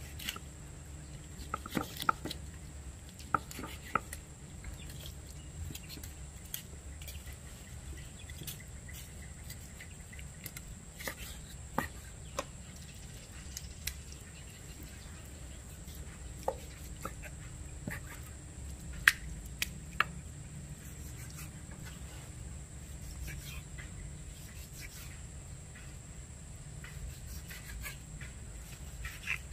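A kitchen knife slicing through raw chicken breast on a wooden chopping board, with scattered sharp taps as the blade meets the board, sometimes a few in quick succession, over a steady low background rumble.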